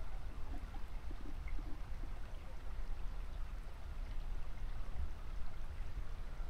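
Faint canyon creek water trickling, with a low, uneven rumble underneath.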